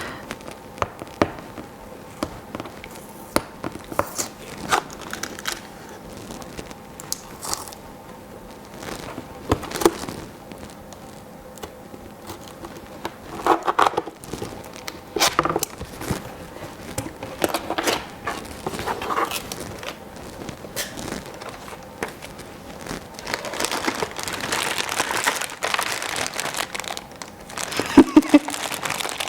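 Packaging of a new breast pump being opened and handled: scattered clicks and knocks of cardboard and plastic parts. Plastic wrapping crinkles for several seconds near the end.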